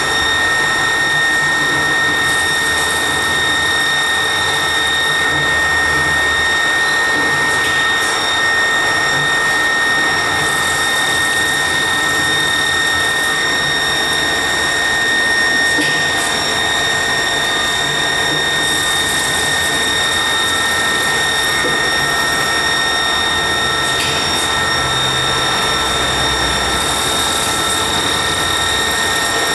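CMA Rapid coordinate drilling machine drilling a row of holes in a bar: the spindle runs with a steady high whine. A cycle repeats about every eight seconds, each with a click and then a short burst of hiss as the next hole is drilled.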